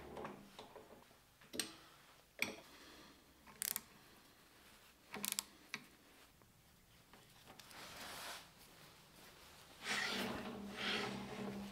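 Steel lathe parts being handled and fitted: a few sharp metal clicks and knocks, then a steel clamp piece sliding back and forth along the lathe bed's ways, rubbing and scraping, loudest near the end.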